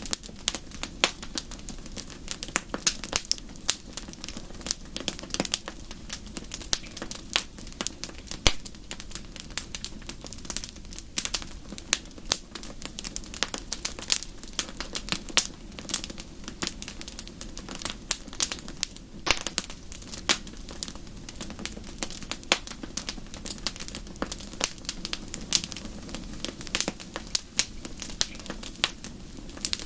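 Wood fire crackling in a fireplace: dense, irregular sharp pops and snaps, several a second, over a steady low rumble of the burning fire.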